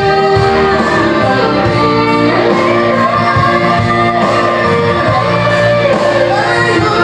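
A woman singing in a high voice through a microphone and PA, holding long notes over electronic keyboard accompaniment.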